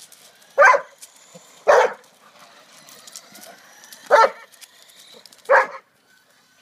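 Doberman barking four times in short single barks while chasing a toy RC car.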